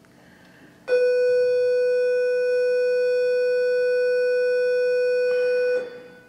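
A steady electronic tone at one unchanging pitch, rich in overtones. It starts suddenly about a second in, holds evenly for about five seconds, then cuts off.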